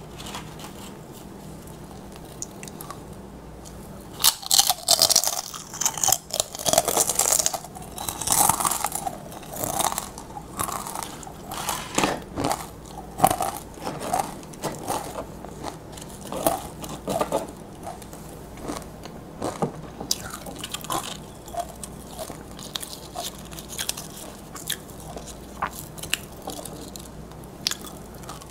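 Close-miked crunching of tortilla (nacho) chips being bitten and chewed: quiet for about the first four seconds, then a run of loud, crisp crunches, easing into softer, spaced chewing crunches.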